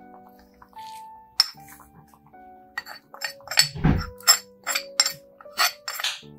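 A dozen or so sharp clinks and taps of a small dish as seasonings are tipped from it into a wok, mostly between about three and six seconds in, with one dull thud near four seconds. Instrumental background music with sustained tones plays underneath.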